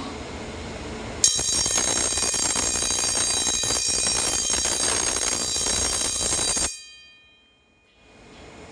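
Electric fire alarm bell ringing loudly for about five seconds, set off by a smoke detector test. It stops abruptly and the bell's tone dies away over about a second.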